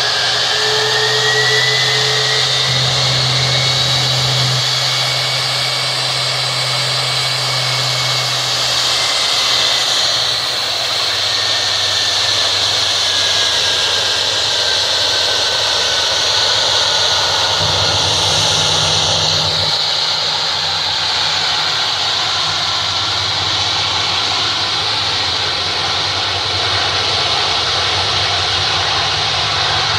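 Boeing 747 jumbo jet's engines running, a loud, steady jet noise. High whining tones rise slightly early on and then slowly fall.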